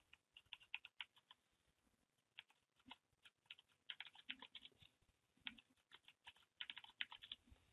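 Computer keyboard typing: faint key clicks in several short runs, with pauses between them.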